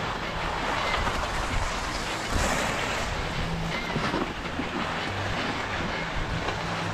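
Wind rushing and buffeting over an action camera's microphone on an open ski slope, with a few short knocks. A low steady hum comes in about halfway through.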